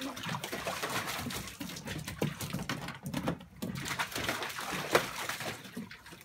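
Water splashing and sloshing in a plastic kiddie pool as two dogs step and paw about in it, a busy run of small splashes with one louder one about five seconds in.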